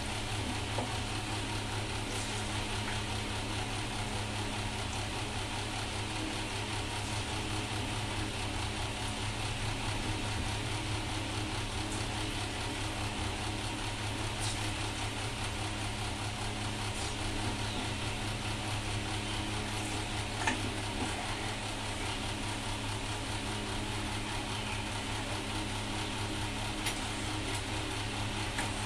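Hot oil sizzling steadily in a karahi as palm fritters (taler bora) deep-fry, over a steady low hum. A few sharp clicks stand out, the clearest about two-thirds of the way through.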